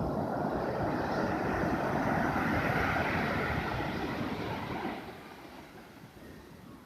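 Sea waves breaking and washing up the shore: a loud rushing surge that peaks a couple of seconds in, then falls away about five seconds in as the water draws back.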